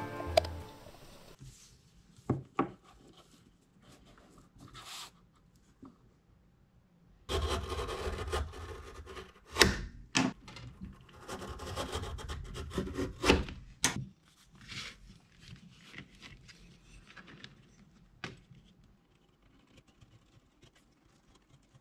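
Leatherworking bench sounds: leather and hand tools being handled, rubbed and scraped on the bench, with a few sharp knocks and clicks. The loudest stretch is in the middle, and it trails off to faint scratching near the end.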